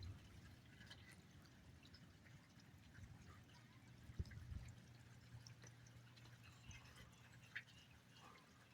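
Near silence with faint scattered drips and ticks, a low hum through the middle, and two soft knocks, about four seconds in and near the end.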